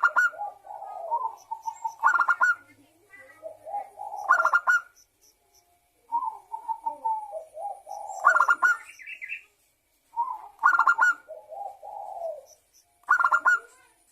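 Zebra dove (perkutut) singing: about six phrases, each a quick run of sharp, clipped cooing notes that trails into softer, wavering lower coos, repeating every two to three seconds.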